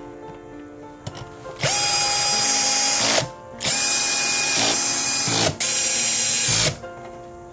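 A small high-speed electric motor whining with a rush of air, switched on in three bursts of one to two seconds each, over background music.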